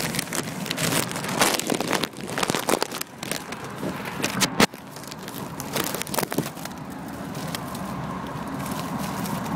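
Handling noise on the recording device's microphone as the camera is turned over and around: rubbing, crackling and clicking, with one sharp knock about halfway through, then a steadier hiss.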